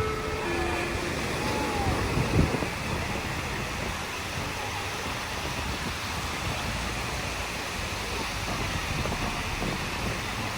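Steady rushing beach ambience of wind on the microphone and surf, with one brief thump about two and a half seconds in. The last notes of a chime melody sound in the first second.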